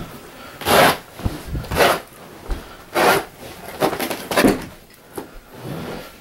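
Razor knife slicing through carpet and its backing in five short cutting strokes over about four seconds.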